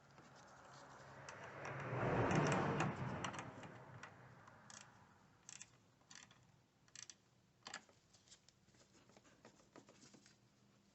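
Ratchet and 10 mm deep socket tightening the nut on a car battery's negative terminal clamp. A scraping rub swells and fades over the first few seconds, then comes a handful of separate sharp ratchet clicks.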